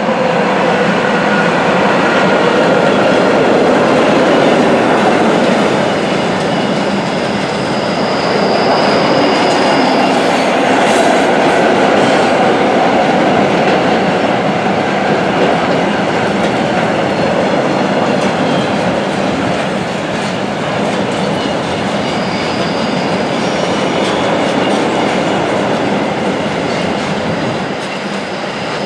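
A long freight train of double-deck car-carrier wagons rolling past on a curve: a steady, loud rumble of wheels on rail with clickety-clack over the rail joints. High wheel squeal from the curve comes and goes several times.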